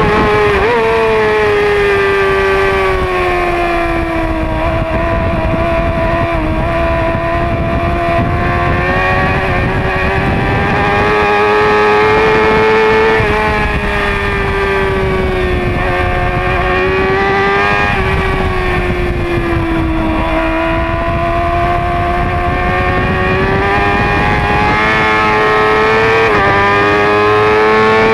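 Yamaha middleweight race motorcycle engine heard onboard at racing speed, held at high revs, its pitch sagging slowly and climbing again through the corners with a few sudden jumps in pitch.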